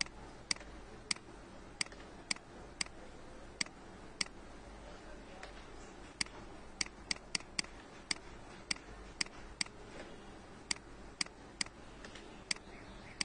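Computer mouse button clicking repeatedly at an irregular pace, roughly one click every half second, with a pause of about two seconds near the middle. A faint steady hum lies beneath.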